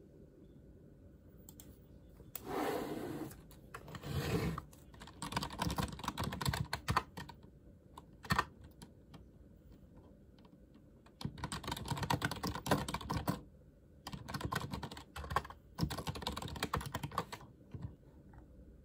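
Typing on a computer keyboard in several quick bursts separated by pauses, after a brief rustle near the start.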